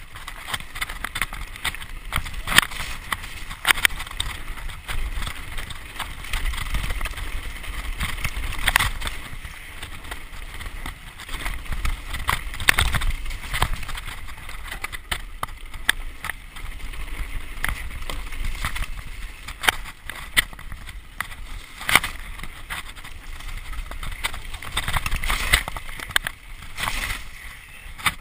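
Mountain bike ridden fast down a dirt singletrack, heard from a camera on the rider: wind rush on the microphone and tyre roll on the trail, with frequent sharp clatters and rattles from the bike as it hits bumps.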